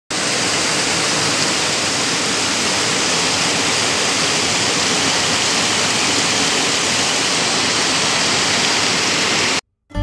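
Tiered waterfall, water pouring over stepped rock ledges as a steady rushing noise that cuts off suddenly just before the end.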